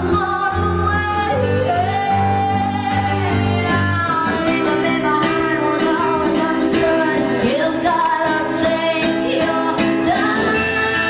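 A woman singing a slow melody with long held notes over acoustic guitar accompaniment, live. The deep low guitar notes thin out about four seconds in.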